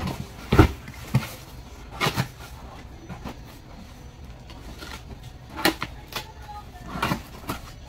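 Hands working at a taped cardboard shipping box: irregular knocks, scrapes and rustles of the cardboard as the packing tape is picked at and cut, about ten sharp ones spread through, the loudest about half a second in.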